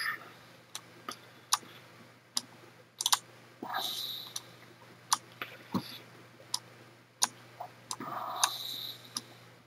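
Single sharp computer mouse clicks, scattered about once a second, with two brief soft swishes, over a faint steady low hum.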